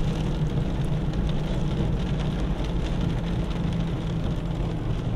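Steady low roar of tornado wind, with a light scattered patter of rain.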